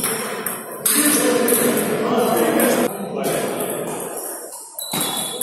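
Table tennis balls clicking off bats and tables in a large sports hall, with rallies on several tables. Behind them runs hall chatter, which swells louder for about two seconds from around a second in.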